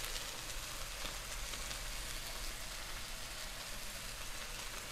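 Faint, steady sizzling of meat frying in a pan.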